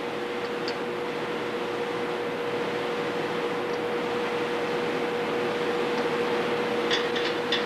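Steady hum and hiss with a constant tone, joined by a few light clicks about seven seconds in.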